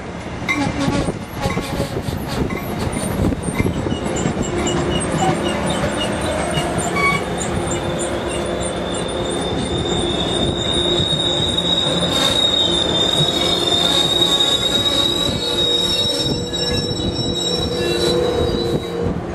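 MBTA commuter train of bilevel coaches rolling into the station and slowing to a stop, its wheels rumbling and clattering on the rails. A high-pitched squeal sets in about halfway through and holds until the train stops near the end.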